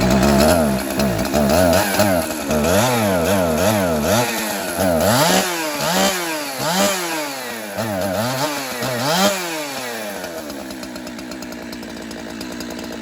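Two-stroke chainsaw revving up and down over and over, about once a second, then settling into an idle that slowly sags over the last few seconds. The owner says this saw needs a carburettor rebuild.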